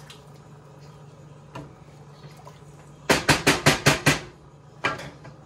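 A wooden spatula rapped quickly against the rim of a stainless steel stockpot, about seven sharp knocks in about a second, then a single knock a moment later.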